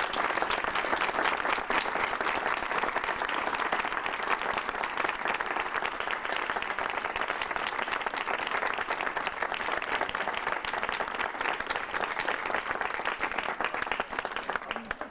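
Crowd applauding: dense, even clapping that breaks out suddenly and dies away near the end.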